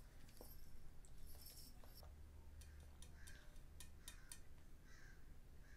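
Near silence with faint small clicks and soft mouth noises as a small child sips milk through a straw.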